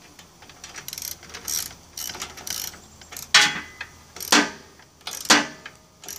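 Ratchet wrench clicking in short strokes as it tightens the clamp nut on a Snapper rear-engine rider's belt-tension tube. Light rasps come first, then three louder strokes about a second apart.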